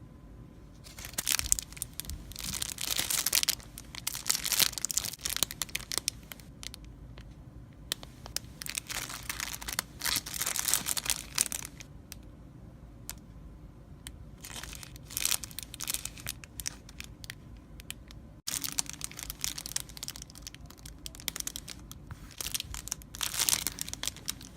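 Packaging being handled and torn open: irregular bursts of crinkling and tearing, with short pauses between them.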